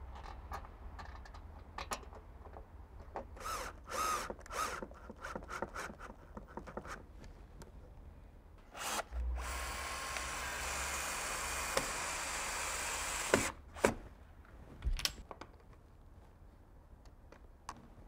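Clicks and light rattles of small door hardware being handled and screwed on, then a drill/driver runs steadily for about four seconds. A few sharp knocks follow.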